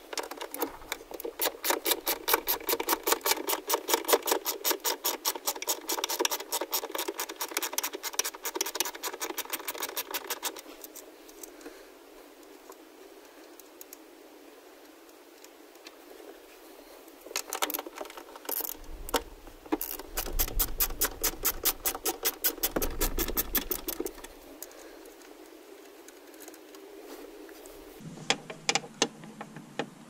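Socket ratchet clicking rapidly as 10 mm bolts are spun out: one long run of about ten seconds, then, after a pause, a shorter run with a few low bumps of handling.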